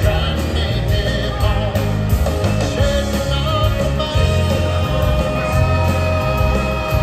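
A live rock band playing an instrumental passage: drums, bass and guitars, with a bass line moving under held melodic notes.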